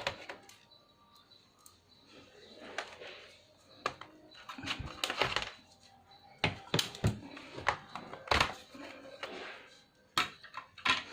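Irregular clicks, knocks and short scrapes from taking a laptop apart: a screwdriver working the case screws and the plastic casing and parts being handled and set down.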